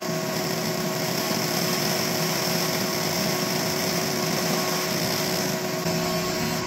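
ComMarker B4 fiber laser engraver running as it marks an image onto a card, a steady hiss with a few constant tones underneath.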